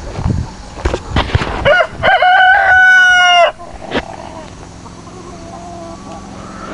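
A rooster crows once, a loud cock-a-doodle-doo of about two seconds that rises and then holds its note, starting a little under two seconds in. A few short knocks come before it.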